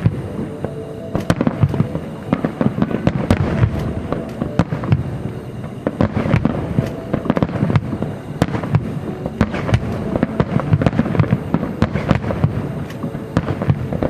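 Aerial fireworks bursting in a rapid, continuous barrage, many sharp bangs and crackles a second with no pause, over music playing underneath.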